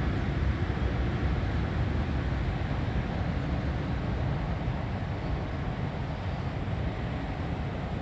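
Steady low rumble of outdoor background noise, with no bird calls to be heard.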